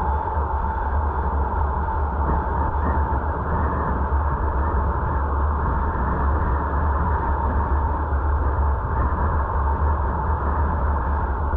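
Steady road and wind noise of a car being driven, with a deep rumble underneath.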